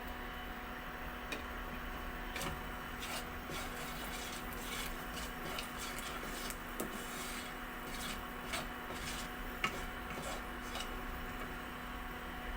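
Nigella seeds sputtering in hot oil in a kadai: a steady faint sizzle with scattered, irregular sharp pops and ticks.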